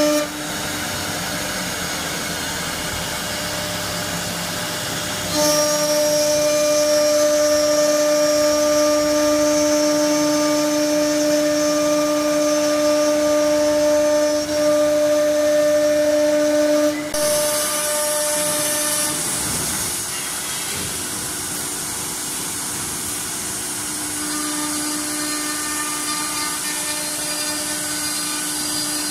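Four-spindle wood CNC router (Sail SA-1325W) cutting into a wooden board: steady spindle whine over the noise of the bits in the wood. It is louder for a stretch in the middle, then drops back as the spindles change over.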